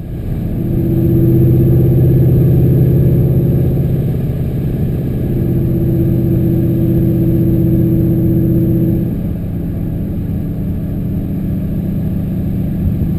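Pontiac GTO's freshly top-end-rebuilt LS2 V8 running under load at a fairly steady pitch, easing off a little about nine seconds in.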